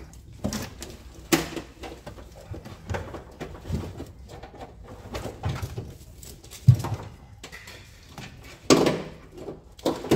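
Irregular rustling, clicking and knocking of a car's wiring loom being handled and fed behind a stripped-out dashboard by hand. There is a sharp knock about two-thirds of the way in and a longer rustling burst near the end.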